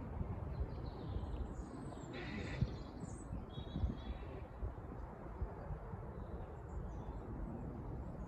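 Uneven low rumble of wind on the microphone, with a few short bird chirps about one to four seconds in.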